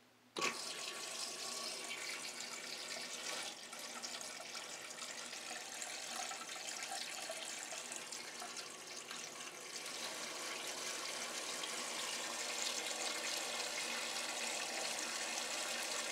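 Toto electronic toilet seat in preparation mode, running water into the bowl: a steady rush of water that starts suddenly about half a second in.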